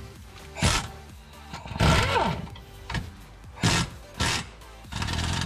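Background music, broken by four short, loud bursts of noise at uneven intervals, one with a falling tone in it.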